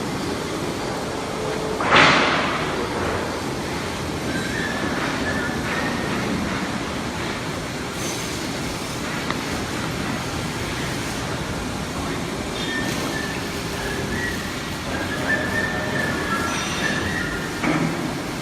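W12 four-roll CNC plate rolling machine running, its rolls turning a steel plate, with steady mechanical noise and intermittent high metallic squeals. A loud sudden burst of noise comes about two seconds in.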